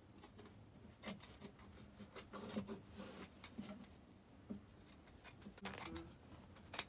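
Scissors cutting fabric: a faint run of short, irregular snips mixed with the cloth rustling as it is handled.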